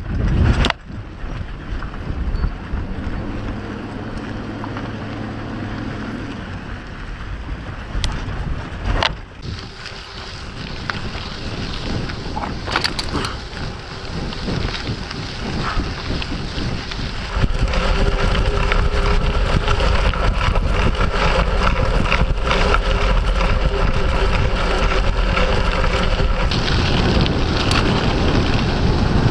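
Wind buffeting the camera microphone on a rough dirt-track descent, with knocks and rattles. In the first few seconds it is a vehicle, with a low steady engine tone under the wind; later it is a mountain bike riding downhill, where the wind noise gets louder about two-thirds of the way in.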